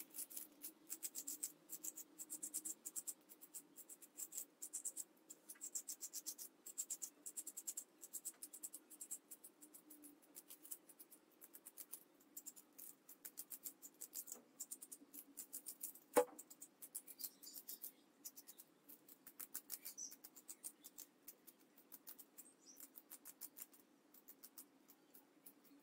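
Small kitchen knife dicing an onion held in the hand: a quick run of faint, crisp cutting clicks, a few a second, with one sharper knock past the middle.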